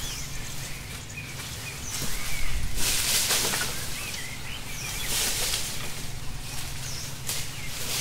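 Small birds chirping repeatedly over a steady forest background, with bursts of rustling and scraping as a long vine is dragged and pulled through leaf litter and undergrowth. The loudest rustle comes about two and a half seconds in.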